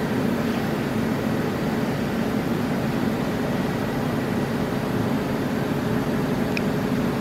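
Steady machinery hum with a few constant low tones, unchanging throughout.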